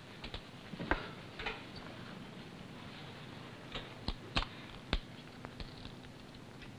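A few scattered, irregular knocks and clicks over a steady hiss, with the sharpest ones about a second in and between four and five seconds in.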